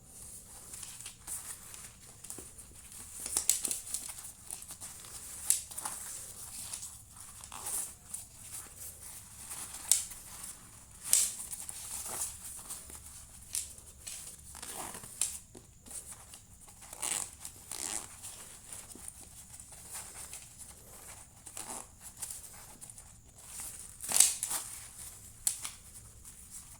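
A new waist bag and its plastic packaging being handled and unwrapped: rustling and crinkling, with irregular sharp crackles and a few louder ones.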